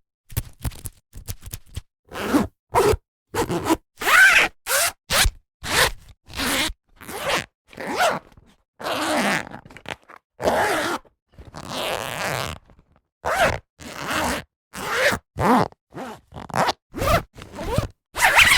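A zipper being pulled open and closed in a long series of separate strokes, most short and quick, a few slower and lasting about a second, with brief silences between them.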